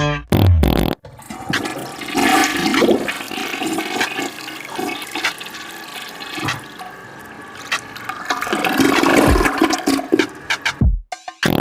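A short burst of low-pitched fart sounds, then a toilet flushing for about nine seconds, the rush of water swelling near the end before cutting off suddenly.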